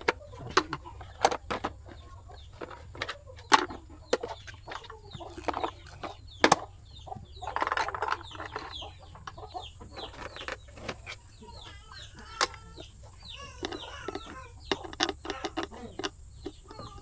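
Repeated sharp clicks and knocks of hand tools and parts being handled while an electric kettle is taken apart for repair, with chickens clucking on and off in the background.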